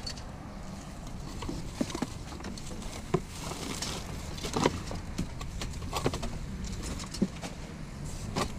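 Gloved hands rummaging through a box of curbside junk: scattered knocks, clicks and rustles as wood and plastic pieces are shifted, over a steady low rumble.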